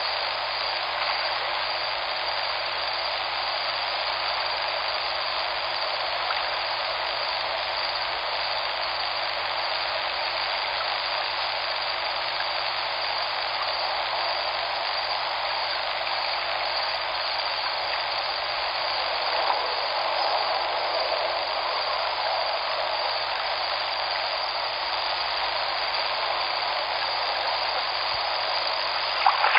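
Flowing river water: a steady, even rushing. It grows a little rougher near the very end.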